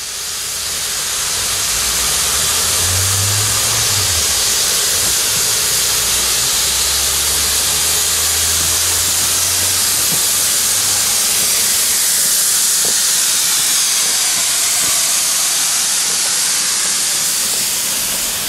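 Steam locomotive of 1909 venting steam in a loud, steady hiss, with a low rumble under it for roughly the first ten seconds.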